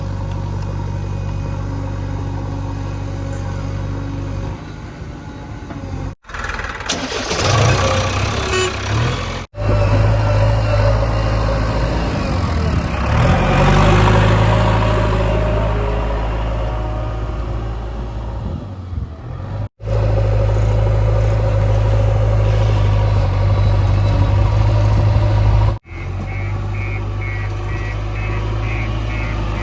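JCB 3DX backhoe loader's diesel engine running and working, heard in several clips that cut off abruptly, with louder, noisier stretches in the middle. A reversing alarm beeps rapidly near the end.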